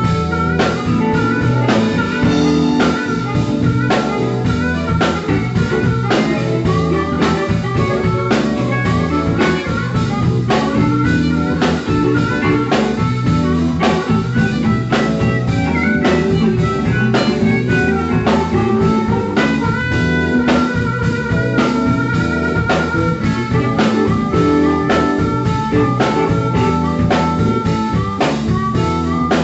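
Live blues band playing: a harmonica cupped to a vocal microphone carries the lead over guitar and drums keeping a steady beat.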